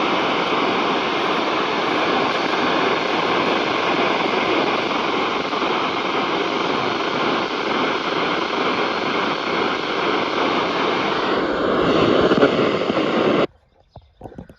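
Loud, steady hiss of static with no tone or rhythm in it, cutting off abruptly about a second before the end.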